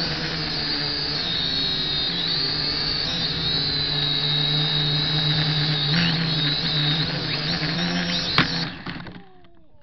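Potensic quadcopter drone's motors and propellers whining steadily, the pitch wavering a little as it manoeuvres. Near the end a sharp snap as it strikes the branches of a tree, and the motors wind down and stop.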